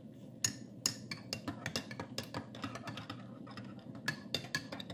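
A metal teaspoon stirring in a mug of tea, clinking against the sides several times a second.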